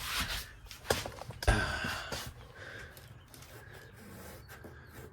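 Two sharp knocks about a second apart, with some rustling, then quieter handling sounds in a small room.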